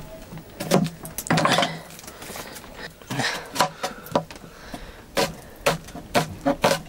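Metal cooking pots and utensils clattering: a run of irregular knocks and clinks, several of them sharper near the end.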